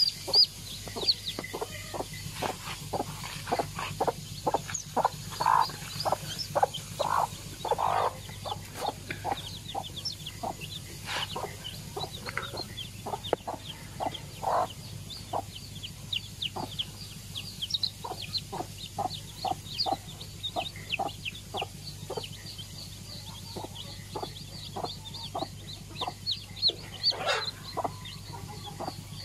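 Mother hen clucking steadily in short calls several a second, with her newly hatched chicks peeping high over the clucks.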